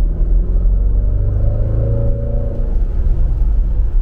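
Inside the cabin of a 2020 Jaguar F-Pace SVR on the move: a steady deep rumble of its 5-litre supercharged V8 and the road. The engine note rises briefly around the middle, then eases off.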